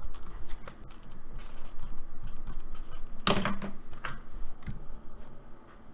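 Trading cards being handled and set down on a tabletop: a run of light clicks and taps, with a louder clack about three seconds in.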